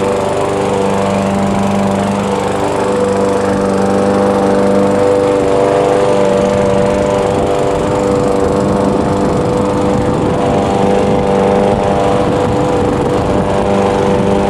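Walk-behind gas lawn mower running steadily at an even engine speed while it is pushed over the grass, mowing.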